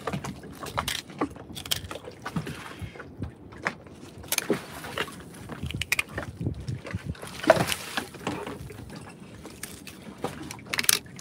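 A knife cutting and scraping through a large fish's skin and along its bones on a wooden deck: irregular knocks, clicks and scrapes as the fillet is worked free.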